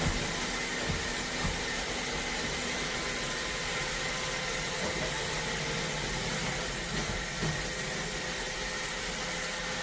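iRobot Roomba Combo robot vacuum running steadily, with a few faint knocks.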